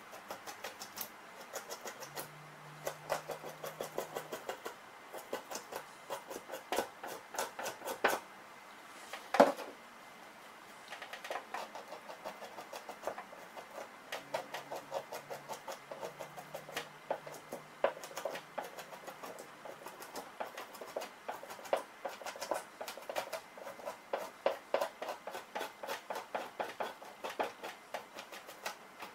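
Two-handled fleshing knife scraping flesh and fat off a beaver hide stretched over a fleshing beam, in quick short strokes several a second. The strokes pause about nine seconds in, with one sharp knock.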